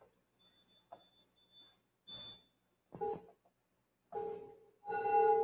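D-Lev digital theremin sounding a few short synthesized notes, then a longer, louder note about five seconds in.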